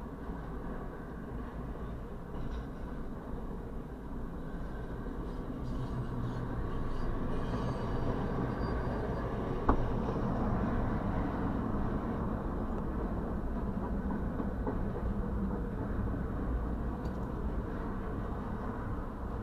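Double-stack intermodal freight train rolling past, a steady rumble of wheels on rail heard muffled from inside a stopped vehicle, with one sharp knock about halfway through.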